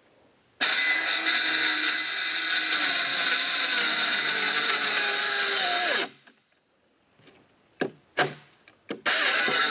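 Power saw cutting wood for about five seconds, its motor pitch falling as it winds down when released. A few short bursts follow, and the cutting starts again near the end.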